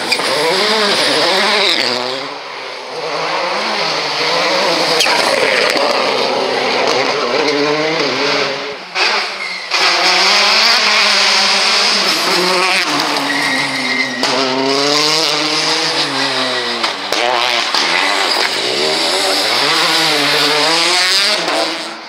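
Rally cars, among them a Škoda Fabia and a Citroën DS3, passing at full attack one after another. Their engines rev hard and drop away through gear changes and lifts, with the pitch rising and falling many times.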